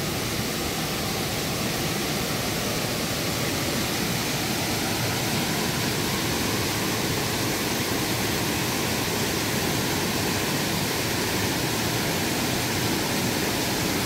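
Steady rush of a cascading mountain-stream waterfall pouring into a deep pool, carrying a heavy flow of water.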